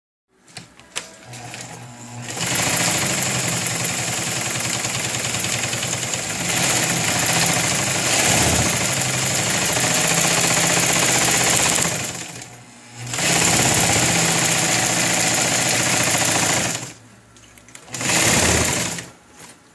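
Cast-iron Elgin Zig Zag Z-22 sewing machine, restored and in good working order, running at a steady speed. It starts slowly with a few clicks, then runs for about ten seconds, stops briefly, runs again for about four seconds, and ends with a short burst near the end.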